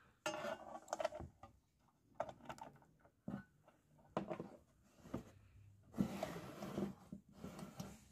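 Faint handling noise: a series of irregular knocks, clicks and rustles as coaxial cables with BNC connectors are fitted to a homemade metal-cased SWR meter and the box is shifted on a tiled tabletop.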